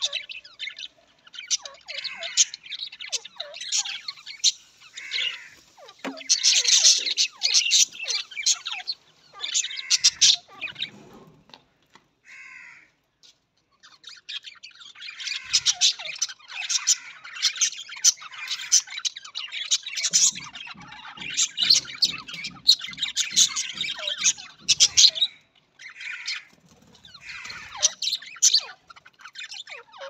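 A flock of budgerigars (budgies) chattering, with rapid chirps, warbles and squawks overlapping. The chatter drops away briefly about twelve seconds in, then resumes just as busily.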